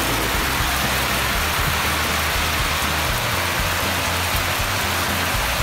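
Water spraying from the sprinklers of an inflatable toy car wash onto a plastic ride-on toy car, a steady hiss like rain.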